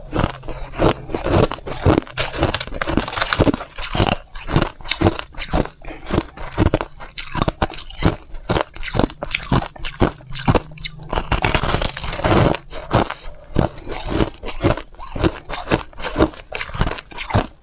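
Close-miked crunching of freezer frost: quick crisp bites and chews of packed frost chunks, several crunches a second, with a longer hissy crunch about two-thirds of the way in.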